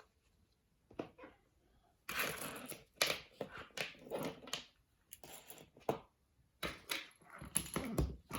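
Small plastic and silicone fidget toys (mini pop-it poppets) being handled and set down while sorted, giving irregular clicking and rustling in clusters about once a second.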